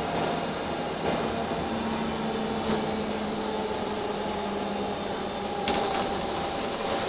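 Cabin noise inside a moving Wright Eclipse single-deck bus: the steady rumble of the engine, drivetrain and tyres, with a low hum from the driveline that comes in about two seconds in and fades a couple of seconds later. A few light rattling clicks near the end.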